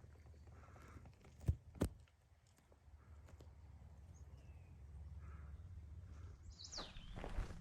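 A hiker's footsteps on a dirt mountain trail, faint, with two sharp clicks about a second and a half in. A short falling whistle comes near the end.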